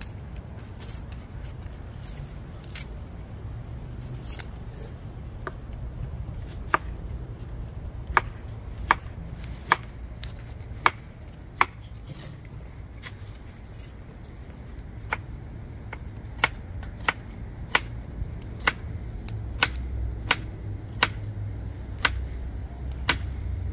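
Knife chopping seasoning vegetables such as bell pepper: a string of sharp, separate strikes, a few seconds apart at first, then a pause, then a steadier run of about one or two strikes a second, over a steady low rumble.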